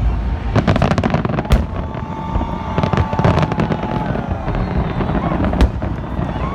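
Fireworks display: a dense run of bangs and crackling from bursting shells over a low rumble, with a few loud single bangs later on.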